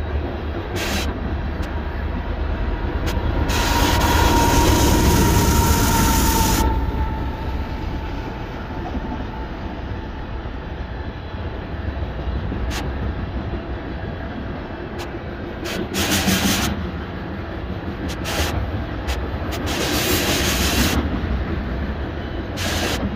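Freight train's covered hopper and tank cars rolling past: a steady rumble of steel wheels on rail, with sharp clicks here and there. The sound swells louder twice, about four seconds in and again near the end.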